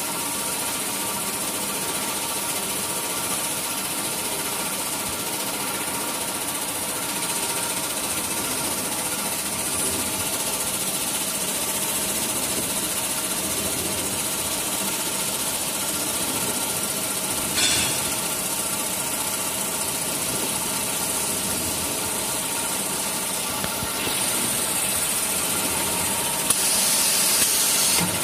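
Automatic band saw cutting machine for tissue paper rolls running steadily: a machine hum made of several steady tones under a high hiss. The hiss gets louder near the end, and there is a short noisy burst about two-thirds of the way in.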